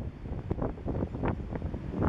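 Wind buffeting the microphone in irregular gusts, a low rumble that rises and falls from moment to moment.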